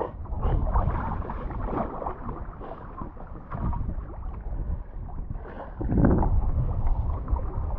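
Water splashing and sloshing around a kayak, in uneven surges, with the loudest surge around six seconds in, mixed with wind rumble on the microphone.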